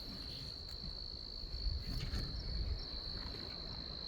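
A steady, unbroken high-pitched insect drone, like crickets, with an uneven low rumbling underneath.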